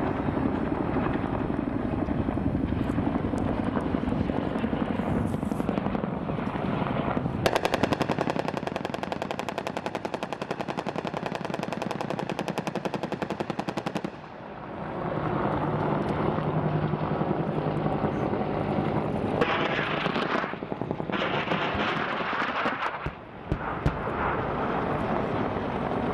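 M2 .50 calibre heavy machine gun firing long, rapid bursts of automatic fire, with short pauses about halfway through and again near the end.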